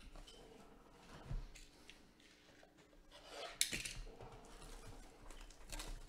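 Cardboard trading-card blaster box being handled and turned over in the hands: light scraping and rustling, with a soft thump a little over a second in and a sharp crackle about three and a half seconds in.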